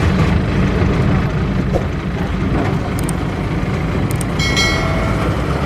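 Maxxi Bimo Xtreme combine harvester running steadily while harvesting, a dense low engine rumble. A brief held high tone sounds about three-quarters of the way through.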